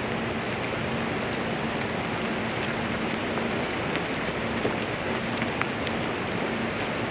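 Steady rushing noise, even and unbroken, with a few faint ticks.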